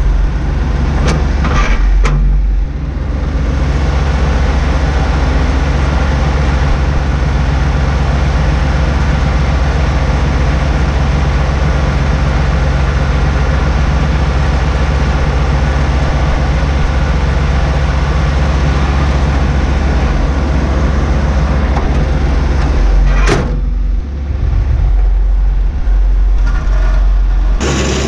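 Bobcat 463 skid steer's diesel engine idling steadily, heard close from the cab, with a couple of sharp clicks about a second and two seconds in and another near the end.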